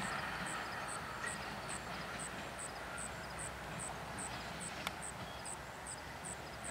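BNSF diesel locomotives running at a distance, a steady low rumble. A faint, regular high ticking, about two and a half ticks a second, runs over it.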